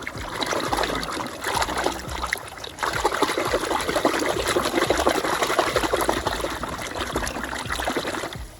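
Water running and splashing over toys being washed: a dense, crackling splash that dips briefly about three seconds in and cuts off near the end.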